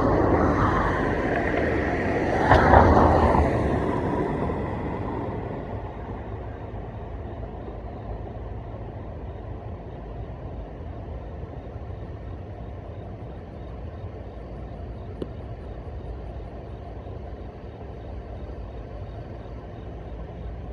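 A vehicle passes close by, loudest about two to three seconds in and fading away by about five seconds. A steady low rumble follows.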